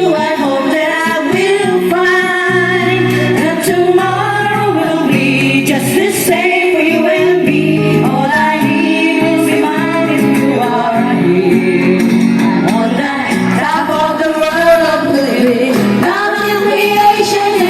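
Music: a song with a singing voice over instrumental accompaniment, playing steadily.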